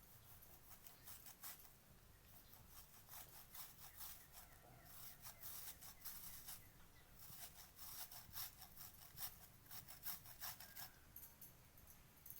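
Faint rubbing and scratching of fingers crumbling fresh paneer into a kadhai, in many short, irregular strokes.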